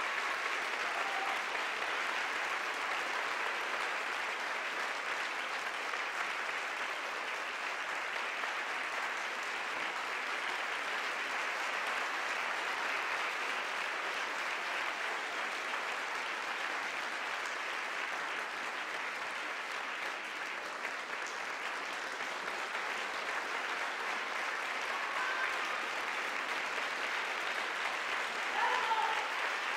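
Large theatre audience applauding steadily, with a few brief shouts from the crowd near the end.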